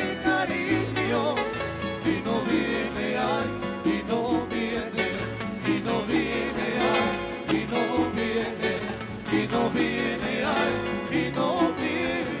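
Live Colombian string-trio music: a requinto playing the lead melody over strummed nylon-string acoustic guitars, with bass guitar and maracas keeping a steady rhythm.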